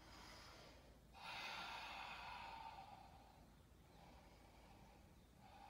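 A person's soft, audible breath out, starting about a second in and fading away over about two seconds, over faint room tone.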